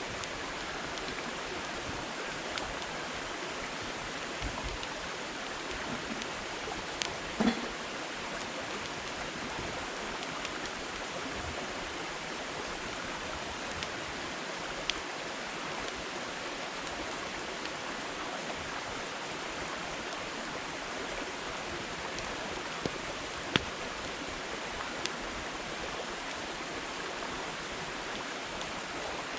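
Firewood burning in a campfire: a steady hiss of the flames with scattered sharp crackles and pops. The loudest pops come about a quarter of the way in and again past three quarters.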